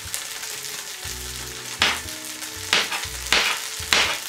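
A chef's knife chopping eggplant into cubes on a plastic cutting board: about four sharp chops in the second half, over a steady background hiss.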